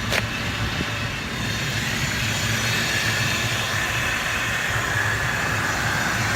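Ford F-550's V10 gas engine idling steadily, with a sharp click right at the start and a steady hiss building in after about a second and a half.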